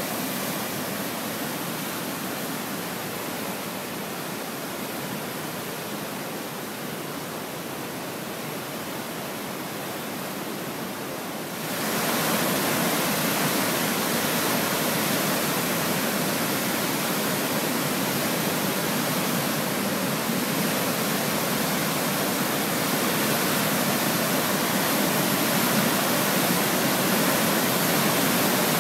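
Athabasca River whitewater rushing through the narrow gorge at Athabasca Falls: a steady roar of churning water. It jumps louder and brighter about twelve seconds in.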